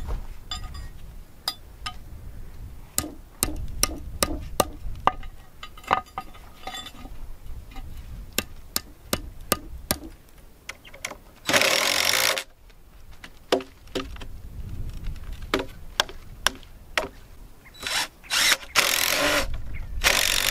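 A power tool running in short bursts of about a second, once in the middle and twice near the end, amid many sharp knocks and clicks of wood being worked.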